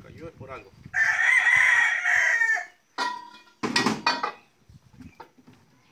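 A rooster crowing once, loudly, for about a second and a half. A shorter, sharp, noisy sound follows about two seconds later.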